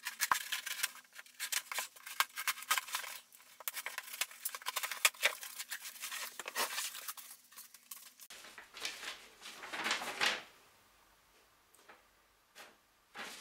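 Cardboard parcel being opened and unpacked by hand: a busy run of small clicks, scrapes and crackly rustling as the flaps and packing are handled, then louder paper rustling about eight seconds in.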